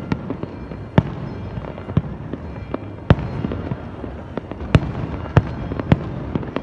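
New Year fireworks bursting: a string of sharp, irregularly spaced bangs, with the strongest about a second in, around three seconds in and three more near the end, over a continuous rumble of further blasts.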